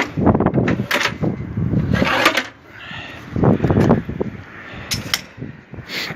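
Small sheet-metal drawers of a homemade welding cart being handled, with irregular metallic knocks, scrapes and rattles.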